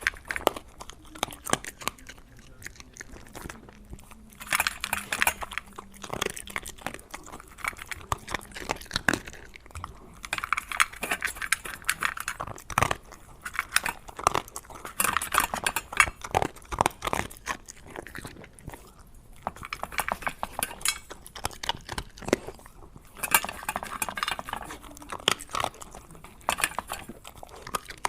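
Chewing and crunching of crisp food, in several louder bouts of crunching with smaller clicks and mouth sounds between them.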